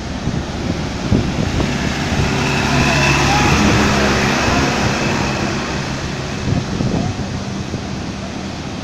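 Truck engines running and water rushing and splashing as loaded goods trucks drive through floodwater flowing over the road. The sound swells as one truck passes close by about three seconds in, then eases off.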